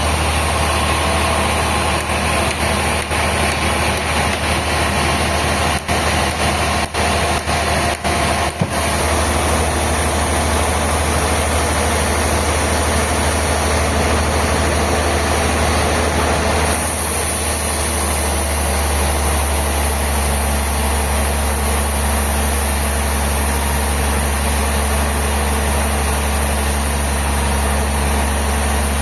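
Heavy sawmill machinery running with a steady, loud low drone. There are a few brief dips in the sound about six to nine seconds in, and its character shifts about seventeen seconds in.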